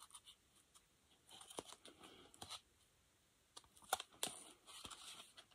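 Faint handling of a cardboard CD box set: light clicks and scrapes of card and paper as its contents are taken out. They come in two clusters, about a second in and again around four seconds.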